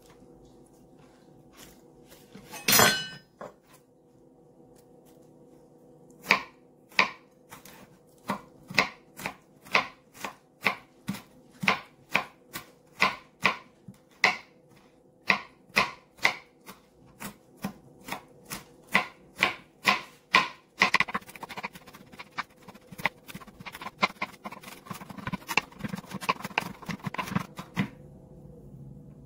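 Knife chopping garlic on a plastic cutting board: one loud knock about three seconds in, then steady strokes about two a second from about six seconds in, turning into quicker, denser mincing strokes from about twenty-one seconds until they stop near the end. A faint steady hum runs underneath.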